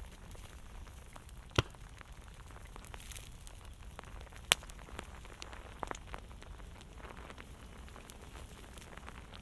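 Fire crackling: many small scattered clicks over a low steady rumble, with two loud sharp pops, about one and a half seconds in and again about four and a half seconds in, and a smaller cluster of crackles near six seconds.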